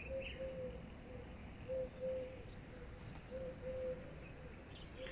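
A dove cooing: a low, level-pitched phrase of a short note followed by a longer one, repeated about every second and a half, four times.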